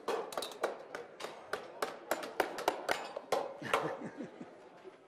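Hammers driving nails through galvanized metal joist hangers into timber: quick, irregular blows, about four a second, thinning out near the end.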